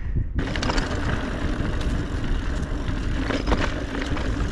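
Mountain bike being ridden fast on a dirt trail: steady rumble of tyres and wind noise on the camera microphone, with knocks and rattles from bumps. It starts abruptly about a third of a second in.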